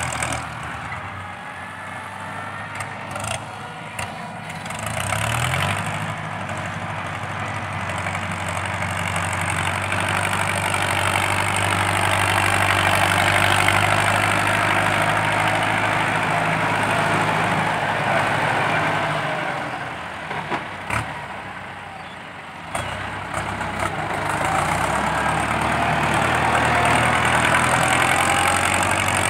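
Ford 6640 tractor's diesel engine running hard through its tall straight exhaust stack while its front blade pushes soil. The engine note swells and eases as the load changes. It drops back for a couple of seconds about two-thirds of the way in, with a couple of sharp clicks, then comes up loud again.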